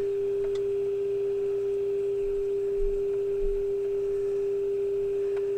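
Steady pure test tone from a Zenith vacuum-tube AM radio's speaker, the demodulated test signal fed into its antenna, heard while the antenna coil is tuned toward peak during alignment; the tone gets clearer as the output climbs.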